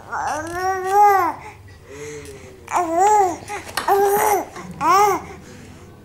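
A baby babbling: about five drawn-out coos and squeals, each rising then falling in pitch, the first the longest.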